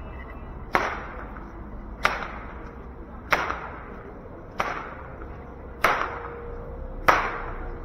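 A whip being cracked again and again: six sharp, loud cracks at an even pace of about one every second and a quarter, each followed by a short echo.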